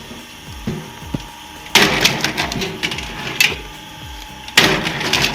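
A manual log splitter striking wood: two loud, sharp crashing impacts about three seconds apart, the first a little under two seconds in, each followed by a brief crackle, with lighter knocks in between.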